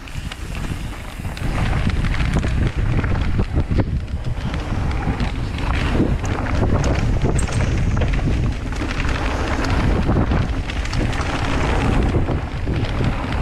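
Wind buffeting the microphone of a mountain bike's action camera during a fast trail descent, a steady low rumble. Tyres on loose dirt and the bike's own rattles add many short clicks and ticks throughout.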